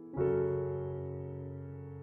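Background piano music: a chord is struck just after the start and rings out, slowly fading.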